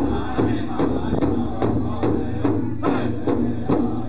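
Powwow drum group playing an intertribal song: a big drum struck in a steady beat of about two to three strokes a second, with voices singing over it.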